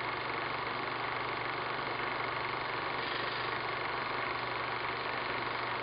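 Steady mechanical hum with hiss, running evenly without change.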